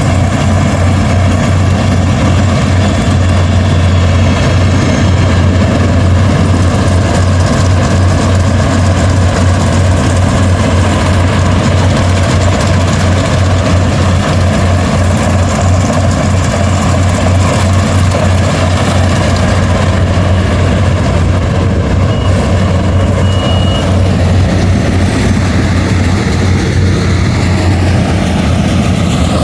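Rice combine harvester's engine running steadily at high, constant revs, with a strong low hum.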